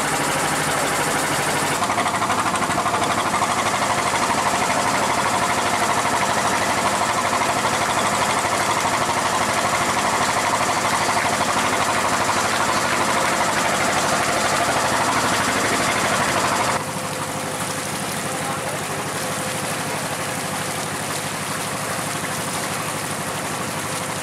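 Boat engine running steadily under a wide hiss, heard from aboard a tour boat. The sound steps abruptly quieter about 17 seconds in.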